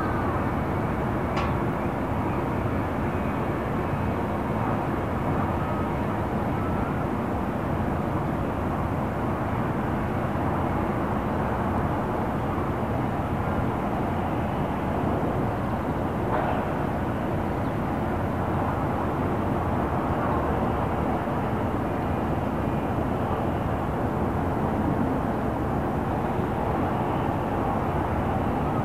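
Calm harbour ambience made mostly of a steady low rumble of distant city traffic, with a faint steady hum underneath. A single sharp click comes about a second and a half in.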